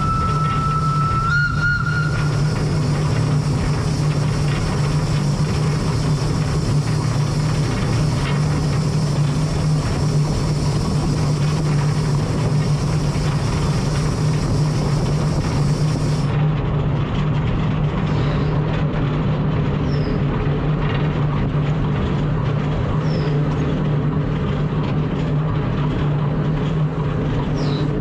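Cockerill-built 1890 steam tram locomotive running along the tramway, heard from its cab: a steady low drone with a rushing noise over it. A brief high tone sounds in the first couple of seconds.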